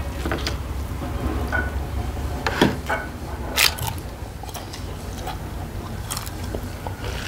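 A person eating, with chewing and wet mouth smacks and a few sharper clicks and crunches, the loudest about two and a half and three and a half seconds in.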